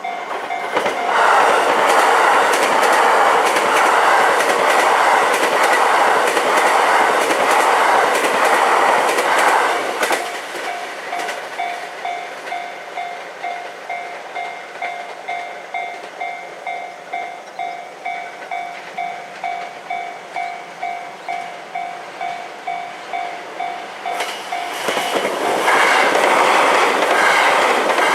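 Two JR West 287 series electric limited express trains pass each other at a level crossing, running loud over the rails with clickety-clack. One goes by in the first seconds and the second comes through near the end. Between them a Japanese level crossing alarm rings steadily at about two dings a second.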